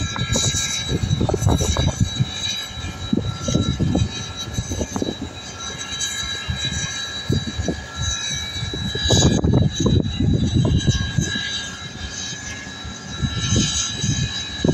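Steady outdoor rumble that swells and fades unevenly, louder about a second in and again past the middle, with a thin, steady high whine over it.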